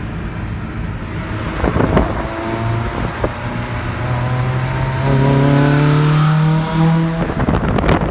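Car engine accelerating, its pitch rising steadily for several seconds, then dropping off near the end.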